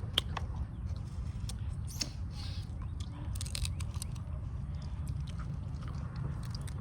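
Eating a seafood boil: scattered sharp clicks and cracks of crab shell being broken and picked apart, with a cluster of cracks about halfway through, over a steady low rumble.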